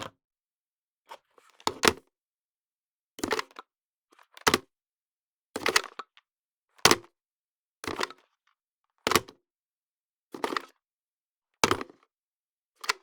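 Telephone handset picked up and hung up again and again, each one a short plastic clunk or clatter, some with two quick knocks, about one a second with silence in between.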